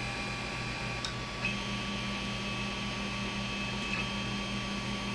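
Creality Ender 5 Plus 3D printer running: a steady fan hum with a rapid low pulsing under the high whine of its stepper motors, whose tones switch pitch a few times with small clicks, as when the axes move during homing.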